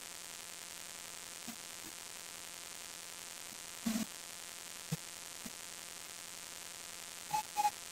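Steady faint hiss and hum of a recording's background noise, with a few soft clicks. Short faint whistle-like notes begin near the end.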